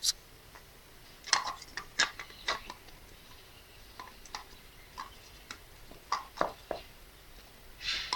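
Irregular light clicks and taps of a pump and PVC pipe fittings being handled, about a dozen over several seconds.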